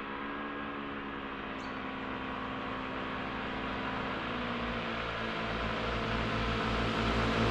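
Motor scooter engines drawing nearer, growing steadily louder with a low hum whose pitch shifts about four seconds in.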